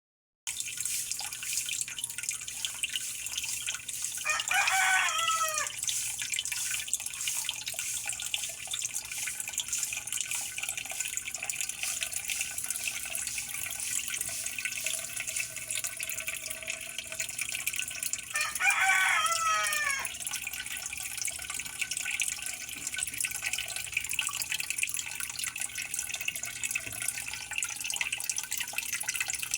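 Water dripping and trickling steadily, with a crackling hiss. A rooster crows twice in the background, about four seconds in and again near twenty seconds, each crow about a second and a half long.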